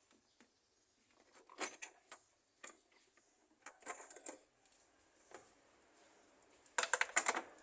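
Metal hand tools and engine parts clinking and knocking in separate clicks, then a quick run of rapid clicks near the end.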